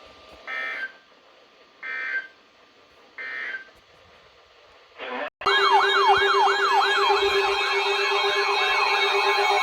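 Three short bursts of EAS digital data tones, the end-of-message signal that closes a NOAA Weather Radio warning. About five seconds in, a loud electronic siren starts, wailing in quick falling sweeps about three times a second.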